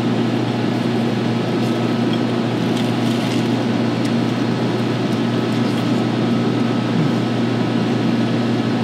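Steady low mechanical hum of commercial kitchen equipment, with a few faint crunches as the flaky puff pastry is bitten and chewed about three seconds in.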